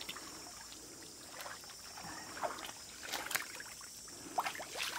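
Shallow muddy water and wet mud sloshing and squelching, with a few short uneven splashes, as people wade and grope through it by hand.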